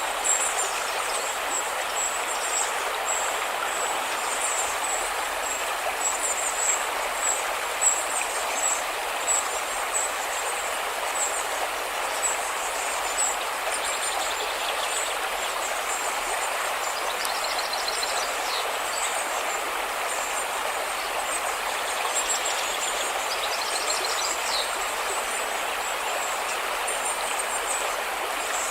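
River water rushing steadily. A thin, high chirping runs over it throughout, with a couple of short rapid trills a little past the middle.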